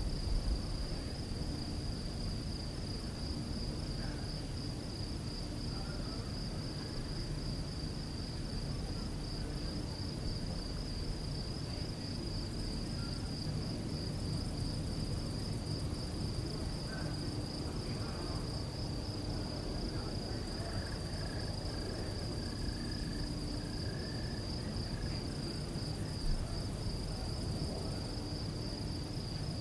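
Crickets chirping in a steady, fast-pulsing high-pitched chorus over a low background rumble.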